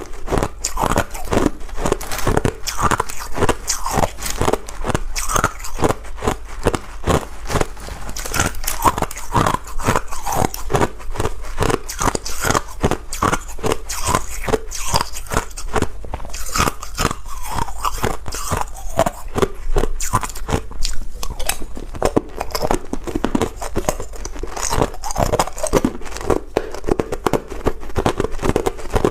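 A person biting and chewing ice: continuous crunching, with several sharp cracks a second.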